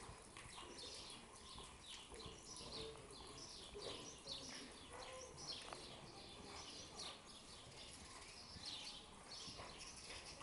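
Faint, busy chirping of small birds, many short high chirps a second, with soft hoofbeats of a horse cantering on the arena's dirt footing underneath.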